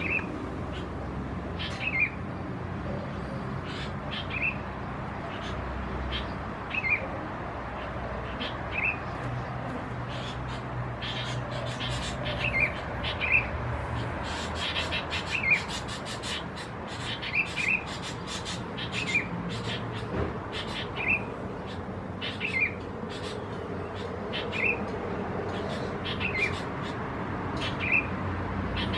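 Wild birds calling: a short, high call repeated about every two seconds, with quicker sharp chirps bunched in the middle, over a low steady hum.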